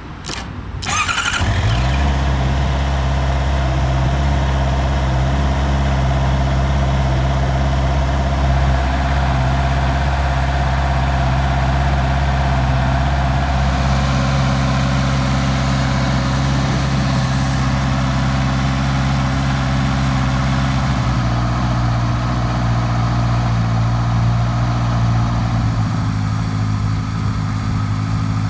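Honda CB650R's inline-four engine is cranked by the electric starter and catches about a second and a half in, then idles steadily. The idle settles slightly lower about twenty seconds in.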